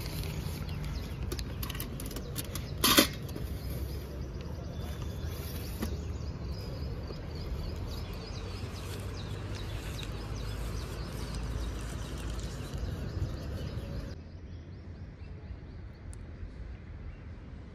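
Outdoor street ambience with a steady low rumble and birds chirping, over close handling noise: newspaper rustling and small clicks as dhokla is wrapped beside a steel hanging balance. One sharp knock about three seconds in is the loudest sound.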